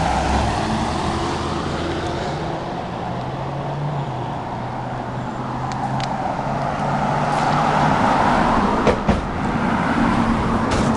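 Road traffic passing close by on a two-lane street: a pickup truck going by at the start, then tyre and engine noise swelling again near the end as another car approaches.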